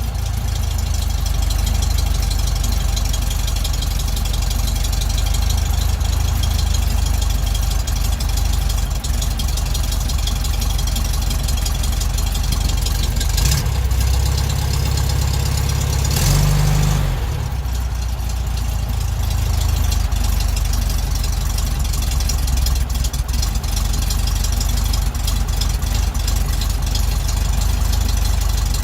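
1967 VW Beetle's 1200 air-cooled flat-four engine idling steadily while it warms up from a cold start, the automatic choke having just come off its fast-idle step. About sixteen seconds in its note briefly rises, then settles slightly quieter.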